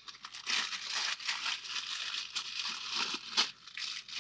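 Irregular rustling and crinkling of plastic packaging and wiring as kit parts are handled and moved, with a sharper crackle about three and a half seconds in.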